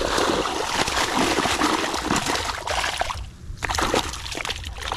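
Shallow muddy water splashing and sloshing as a bamboo plunge basket is worked down into it and hands grope through its top after a snakehead fish. The splashing is dense at first, eases briefly about three seconds in, then comes back as separate splashes.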